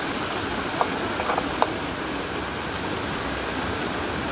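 Battered chicken deep-frying in a large pan of hot oil: a steady sizzle, with a few short clicks about a second in.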